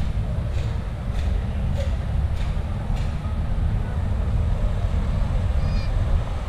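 Street ambience dominated by a steady low rumble, with light footsteps of someone walking, about one every 0.6 seconds, through the first half.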